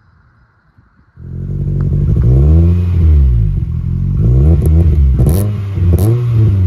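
1998 Toyota Corolla's four-cylinder engine revved repeatedly, starting suddenly about a second in, its pitch climbing and falling back several times.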